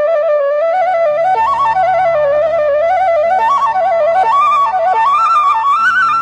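Instrumental flute music: a solo flute plays a winding, ornamented melody that steps up and down, over a low sustained accompaniment.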